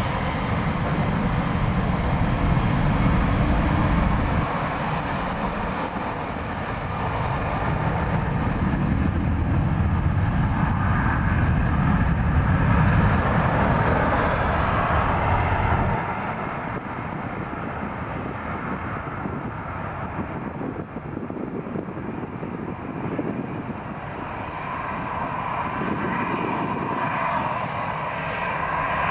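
Airbus A330 airliner's jet engines running as it moves along the runway, a heavy, deep, steady rumble. About halfway through the deep rumble drops away suddenly, leaving a quieter, thinner jet sound as the aircraft draws away.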